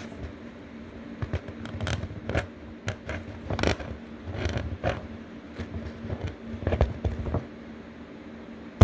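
Small flathead screwdriver scraping and picking soft contact-cement glue from around a coaxial speaker's cone, a run of irregular scratches and clicks that dies away about seven seconds in.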